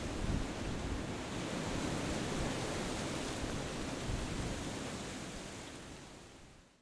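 Steady wind noise on an outdoor microphone: an even rushing hiss with low buffeting rumble. It fades out over the last second or so.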